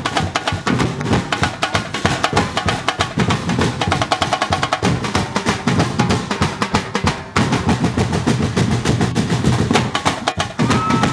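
Festival percussion ensemble drumming a fast, dense rhythm with drum rolls and wood-block-like clacks, briefly breaking about seven seconds in before carrying on.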